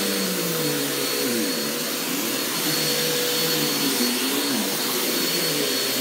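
Bissell CleanView OnePass upright vacuum cleaner running steadily as it is pushed over carpet: a constant rush of motor and airflow with a thin high whine.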